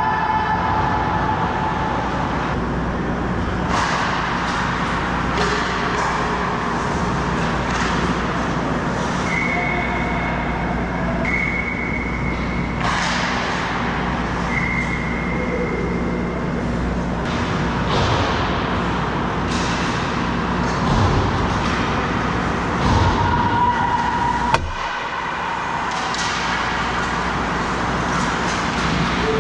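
Ice hockey game sounds in a rink: skate blades scraping and carving the ice and sticks and puck clacking over a steady rumble, with a few brief high tones and one sharp knock about 25 seconds in.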